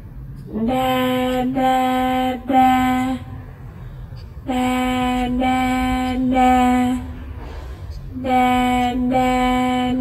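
A high voice singing "da-da-da" in three held notes on one pitch. The three-note phrase repeats three times with short pauses between, over a low steady hum.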